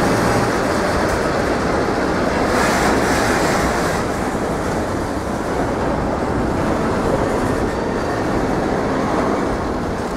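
Container freight train's loaded flat wagons rolling past on the rails, a steady rumble of wheels on track. It turns brighter and hissier for about a second and a half, around three seconds in.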